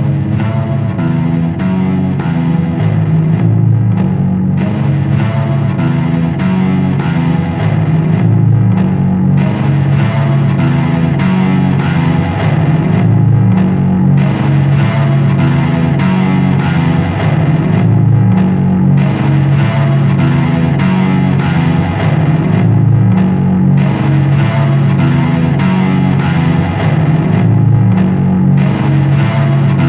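Doom/stoner rock music: a loud, distorted electric guitar riff through effects, with dense sustained low notes.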